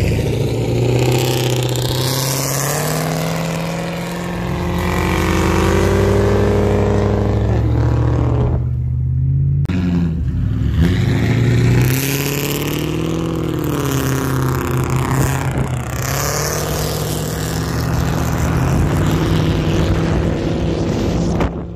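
2002 Ford Mustang GT's 4.6-litre two-valve V8 on an uncorked exhaust (X-pipe, with cats, mufflers and resonator removed), accelerating and revving on the road. Its pitch rises and falls through the gears, with a brief lift-off about nine seconds in.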